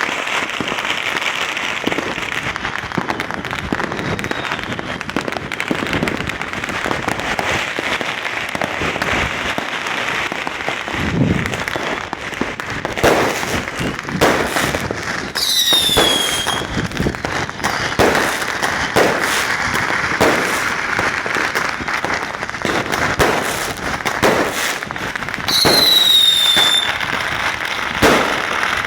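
Many fireworks and firecrackers going off at once: a continuous crackle with frequent sharp bangs. Twice a whistling firework sounds a falling whistle, about halfway through and again near the end.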